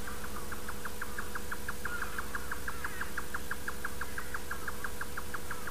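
Cricket chirping in a quick, even pulse, about six or seven chirps a second, over a steady low hum.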